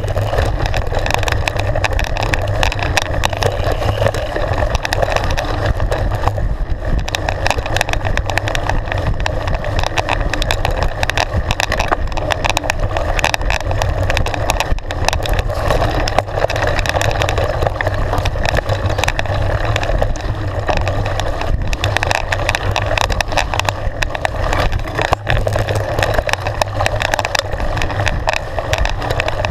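Mountain bike ridden fast down a dirt and gravel trail: a steady rumble of wind and tyres, with frequent knocks and rattles as the bike goes over bumps.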